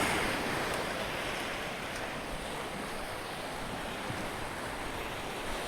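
Sea surf washing on the shore, mixed with wind on the microphone: a steady rushing noise, a little louder in the first second.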